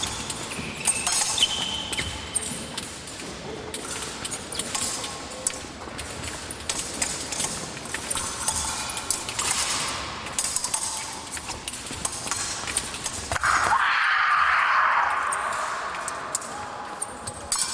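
Épée fencing bout: feet stamping and sliding on the piste, with the sharp clicks and light clinks of blades meeting. About fourteen seconds in, a loud burst of noise starts suddenly and fades away over about three seconds.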